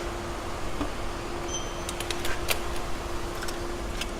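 A few light clicks and taps of hand tools and small parts being handled during door-lock work, over a steady low hum, with a brief high squeak about a second and a half in.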